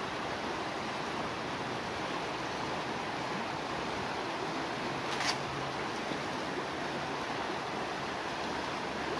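Shallow river flowing steadily past the bank, an even rushing noise, with one brief click about five seconds in.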